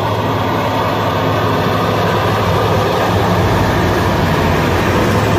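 Giant mining haul truck driving slowly past, its diesel engine running loud and steady with a constant deep hum.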